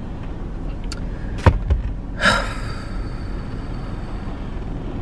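Steady low rumble of a stationary car's cabin, with a sharp click and a couple of soft knocks about a second and a half in, followed by a short exhale.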